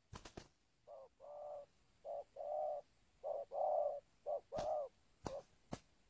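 Spotted dove (tekukur) cooing: four phrases of two notes, a short note then a longer one, a little over a second apart. A few sharp clicks come at the start and near the end.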